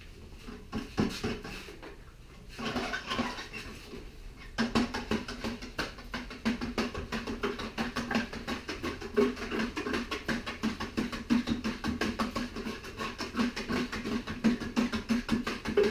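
Rapid, scratchy scrubbing and rubbing of a broomed-out wire rope end being washed in degreaser. Softer handling noises come first, and the steady fast scrubbing starts about four and a half seconds in.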